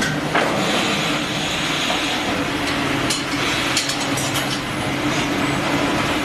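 Automated fish-processing line running: a steady machine hum with a few constant tones over conveyor noise, and some sharp clacks around the middle.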